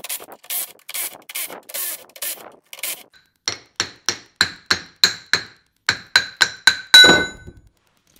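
Impact wrench running out the ring gear bolts on a Ford 10.5-inch Sterling electric-locker carrier in short bursts, about two a second. Then a hammer knocks the ring gear off the carrier: about a dozen quick strikes, each with a ringing metallic tone, the last the loudest.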